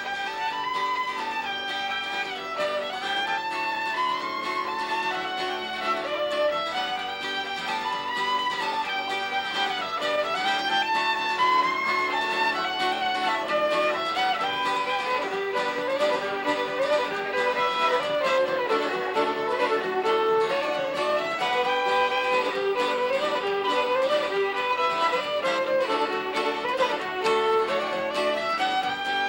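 Background music: a fiddle playing a melody that winds up and down without a break.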